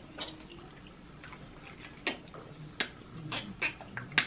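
Eating sounds during a shrimp alfredo mukbang: a handful of short, sharp clicks and taps, from a fork against the plate and the mouth while eating, mostly in the second half.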